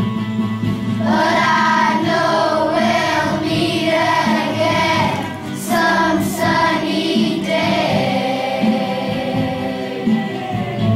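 A choir of children singing a song over a steady instrumental accompaniment. The voices come in about a second in and hold a long note near the end.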